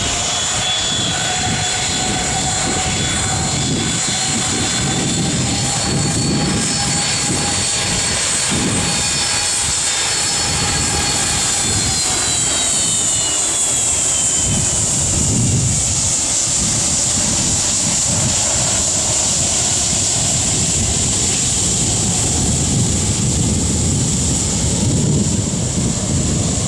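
Icelandair Boeing 757's twin jet engines whining at taxi power as the airliner rolls past; the whine drops in pitch about halfway through as it goes by. Gusty wind rumbles on the microphone.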